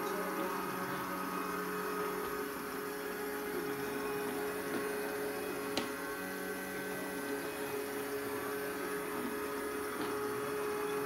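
Robot vacuum cleaner running, its motor giving a steady hum. A single sharp click about halfway through as it bumps into a furniture leg.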